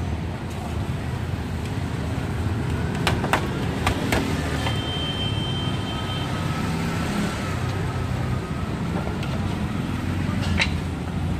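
Steady low rumble of road traffic and street noise. A few sharp knocks or clicks come about three and four seconds in, and again near the end.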